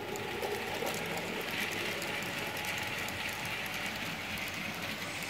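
N-scale model train running on the track: a steady whir with light clicking of the wheels over the rails.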